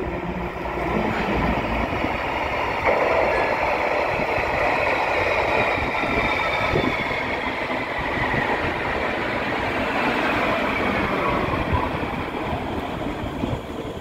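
Underground metro train running into the station past the platform and slowing, with a steady rumble of wheels on rail and a whine that falls in pitch as it slows.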